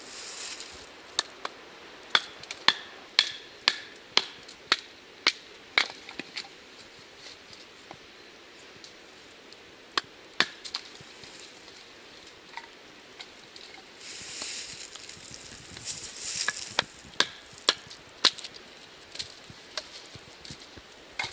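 Firewood being chopped and split with a Skrama, a large chopping knife: a run of sharp wooden knocks at about two a second, then a pause and further scattered strikes later.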